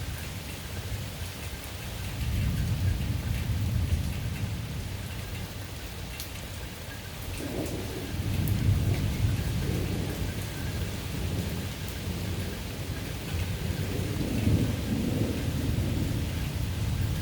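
Steady summer rain with thunder rumbling at intervals: low rolls swell about two seconds in, again around halfway, and once more near the end.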